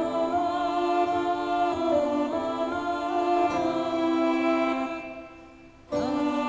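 Slow background soundtrack music of long held notes, which fades down about five seconds in and comes back in a second later.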